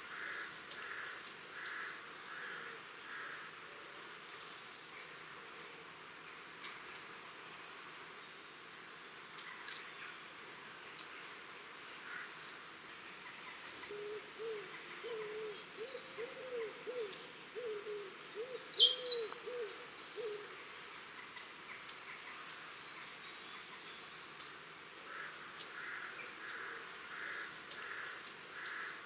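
Flock of long-tailed tits giving short, high, thin contact calls, scattered throughout. Around the middle, a lower bird call warbles for about six seconds, with one louder call just after it.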